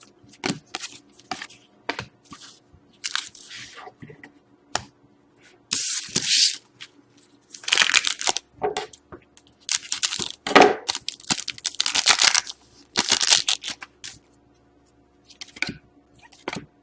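Hands handling trading cards and their plastic and foil packaging: a run of short rustles, crinkles and scrapes, several stretching to about half a second, over a faint steady hum.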